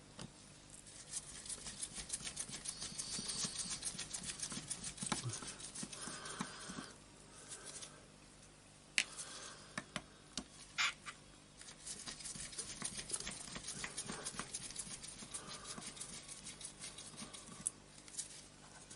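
Rapid light clicking and scraping of a screwdriver working out the small screws of an orbital sander's ball-bearing housing, in stretches with short pauses and a couple of sharper clicks about halfway through.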